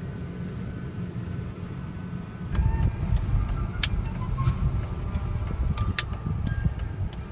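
Car driving, heard from inside the cabin: a steady low road and engine rumble that gets louder about two and a half seconds in, with a few sharp ticks.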